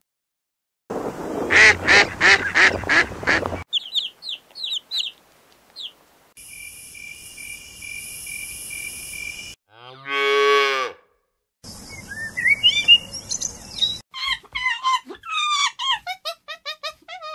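A run of separate animal sounds: a few seconds of rapid, loud flamingo honking, then short chirps, then a snake's steady hiss lasting about three seconds. After that comes a single drawn-out call that dips and then rises in pitch, and near the end a quick series of high chirping and squeaking calls.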